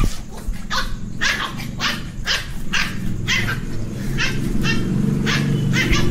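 Small puppy barking angrily in short, sharp yaps about twice a second over a steady low growl that swells toward the end.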